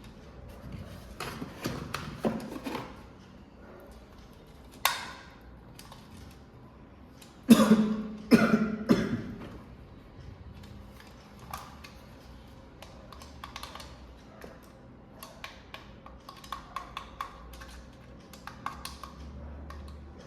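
Packaging and parts being handled during an unboxing: rustling and crinkling, with a sharp knock about five seconds in. The loudest stretch is a run of crinkling rustles a little past the middle, followed by scattered light clicks and taps.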